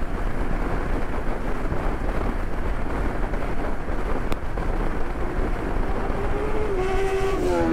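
Motorcycle riding along, its engine running steadily under loud wind rush over the microphone; near the end a pitched tone climbs slowly.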